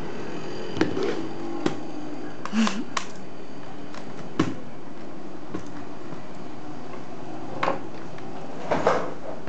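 Scattered knocks and clicks of an Acer laptop's plastic case being handled, turned over and set down on a table, over a steady background hum.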